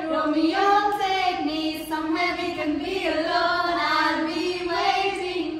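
Young women singing into a handheld microphone, a continuous melody with held notes.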